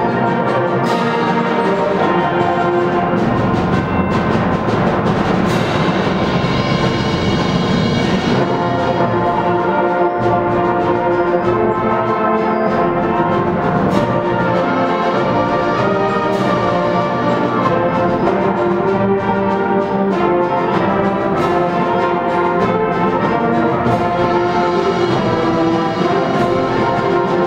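Youth symphonic band playing a concert piece: full sustained brass and woodwind chords, with percussion strikes here and there.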